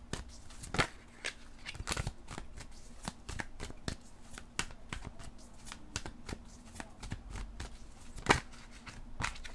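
Tarot cards being shuffled by hand: a steady run of irregular soft flicks and snaps, with a few louder slaps, one near the end.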